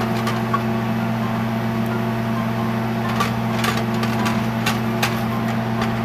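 A steady electrical appliance hum with scattered light clicks and taps.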